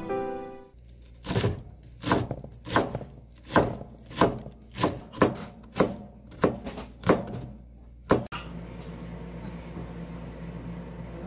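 Kitchen knife slicing cucumber into strips on a wooden cutting board: about a dozen even strokes, one every half second or so. About two thirds of the way in, the chopping gives way to a steady hiss of noodles boiling in a pot.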